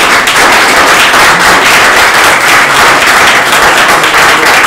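Audience applauding, a loud, steady patter of many hands clapping.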